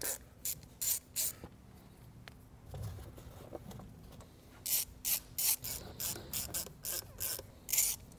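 Ratcheting screwdriver with a T30 Torx bit clicking in short bursts as it drives down the screws of a plastic engine cover, a quick run of strokes in the second half. A soft low knock comes about three seconds in.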